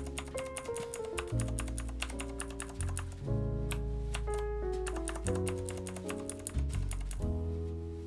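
Background music with held chords and a bass line, over which clicky Cherry MX Blue key switches on an IQUNIX A80 mechanical keyboard are pressed, single keys and combinations.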